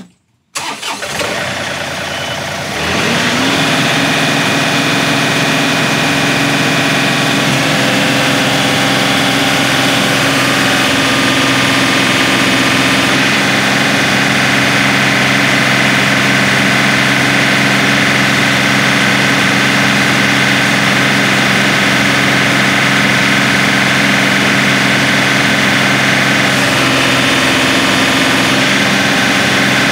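John Deere 2038R compact tractor's diesel engine running with its loader hydraulics pulling up against a chained-down scale. It steps up about three seconds in as the lift takes the load, then holds a steady pitch with the system at full pressure.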